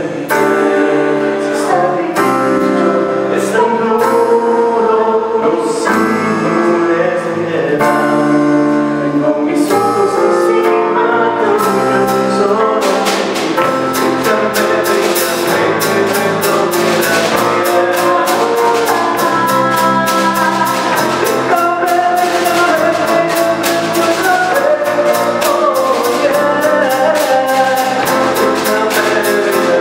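Small live band playing a song: a woman sings over electric bass, keyboard and drum kit. About twelve seconds in the cymbals start keeping a steady beat and the sound fills out.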